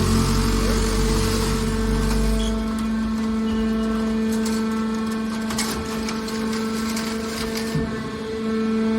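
Hydraulic can baler running, its pump motor giving a steady hum. A deep rumble drops away about two and a half seconds in, and scattered clicks and crackles follow in the middle.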